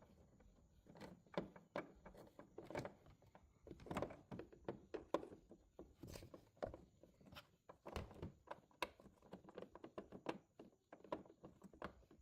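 Faint, irregular clicks and knocks of bent-nose pliers and a turn signal bulb socket tapping against a Ram 1500's front light housing as the socket is worked into alignment.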